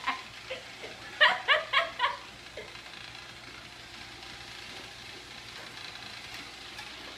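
A person laughing in four quick bursts about a second in, over the faint steady running of a robot vacuum cleaner.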